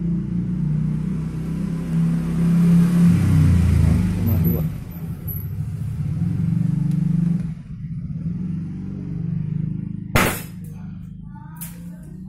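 A spring-powered M97 pump-action gel blaster, converted to shoot 6 mm plastic BBs, fires one sharp shot about ten seconds in, followed by a smaller click about a second and a half later. An engine-like drone runs underneath, loudest in the first half and dropping away before the shot.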